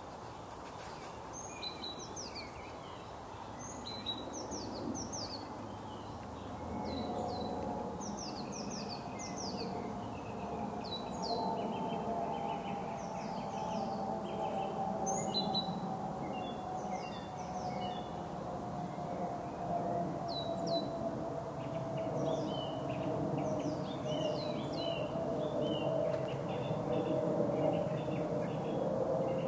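Woodland birds singing, with many short chirps and quick falling notes. Under them a low, distant drone slowly falls in pitch and grows louder.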